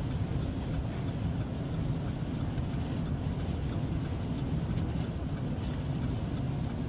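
Steady low rumble of a vehicle being driven on the highway, engine and road noise heard from inside the cab.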